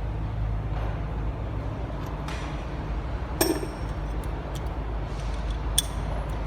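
Steady low engine drone with two sharp metallic clinks, one about midway and one near the end, like a tool striking metal.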